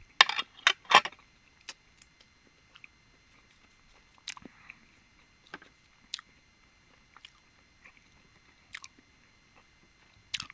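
Close-miked eating of a salted balut: three loud crunchy bites in the first second, then softer scattered chewing clicks. The duck embryo inside is well developed.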